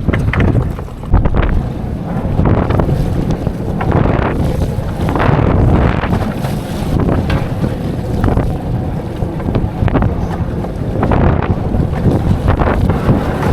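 Strong wind buffeting the microphone, with water slapping and splashing against the hull of a small flat-bottom boat in choppy sea.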